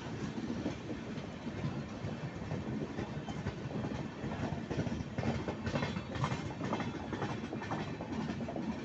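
Indian Railways LHB express coaches rolling past, their wheels clacking over the rail joints over a steady rumble. The clacks come thickest in a run from about five seconds in.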